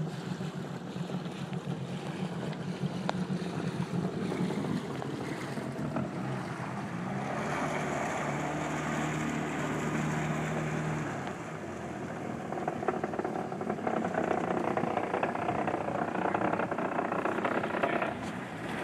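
Bombardier Sea-Doo GTS jet ski's two-stroke engine running at low speed, its pitch rising and falling a few times as it is throttled, over a steady rushing noise.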